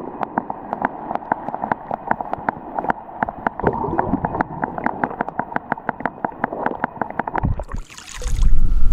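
Water gurgling and lapping, with a quick irregular run of small clicking splashes. Near the end comes a short rush of noise, then a loud low rumble.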